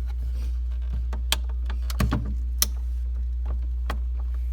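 Scattered sharp plastic clicks and taps from handling the water filter and its cover inside an LG refrigerator, over a steady low hum.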